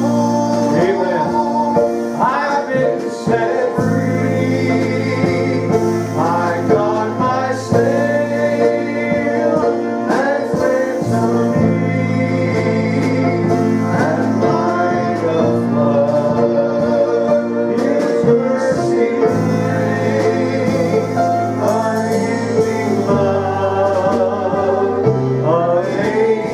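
Gospel worship song: a male voice singing over guitar and a band, with sustained bass notes that change every few seconds.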